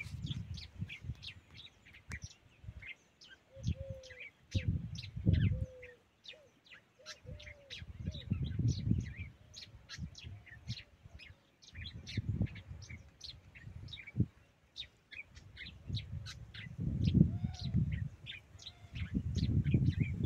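Many small birds chirping, short high chirps several a second throughout, with a few lower rounded call notes mixed in. Irregular low rumbles come and go underneath and are the loudest moments.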